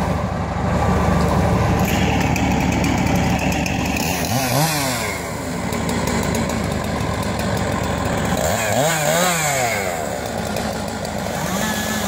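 A wood chipper's engine runs steadily. Twice, about four and eight and a half seconds in, an engine is revved up and let back down.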